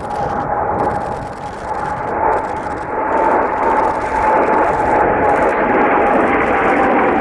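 Blue Impulse Kawasaki T-4 jet trainer flying past, its turbofan roar growing steadily louder over a few seconds. A high whine rides on the roar and slowly drops in pitch as the jet goes by.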